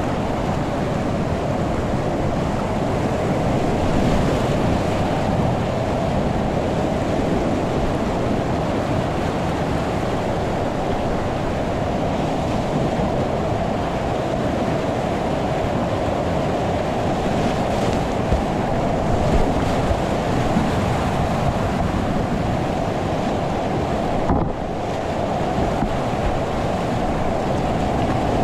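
Whitewater of a steep boulder-garden creek at about 1280 cfs rushing loudly and steadily, with water and wind buffeting the microphone. The sound dips briefly near the end.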